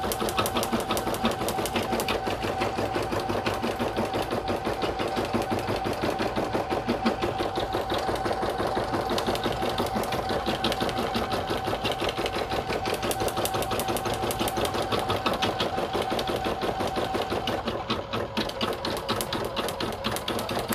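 Brother PE770 embroidery machine stitching out a design at a slow 300 stitches per minute: a steady, rapid needle rhythm of about five stitches a second over a steady tone.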